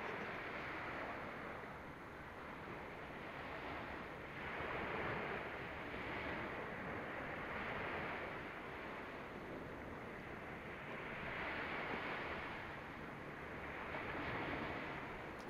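Ocean surf washing onto a sandy beach: a steady rush of noise that swells and fades every few seconds.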